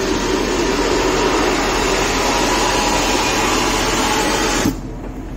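Air being blown through a hose into an immersion suit to inflate it for an air pressure test: a steady rushing hiss that cuts off suddenly near the end as the fill stops with the suit full.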